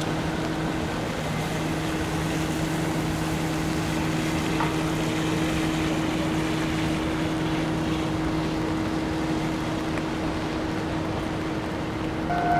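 A steady low mechanical hum with a two-note drone, over a hiss of rain and wind. Near the end, a railway level-crossing warning bell starts ringing.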